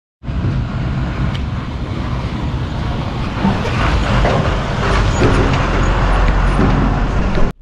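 A heavy truck's engine and tyres on a rough gravel road as it drives past close by, a dense rumbling noise that starts and then cuts off suddenly near the end.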